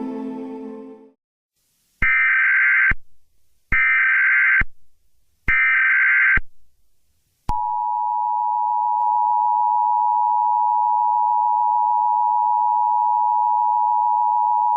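Emergency Alert System tones: background music fades out about a second in, then three short, identical SAME header data bursts sound, and about halfway through the steady two-tone EAS attention signal begins and holds.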